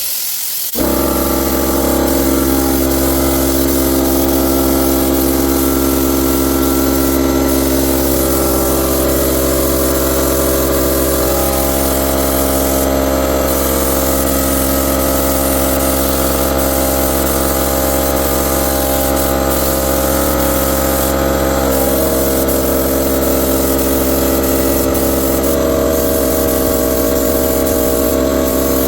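An air compressor's motor and pump kick on about a second in and run steadily, a loud even machine hum.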